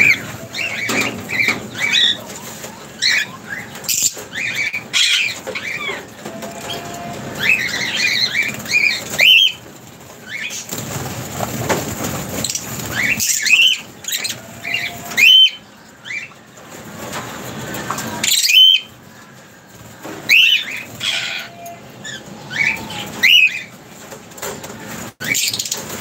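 Lovebirds chirping in quick, shrill calls again and again, with wing flaps and rustling as birds fly in and settle on a wooden perch.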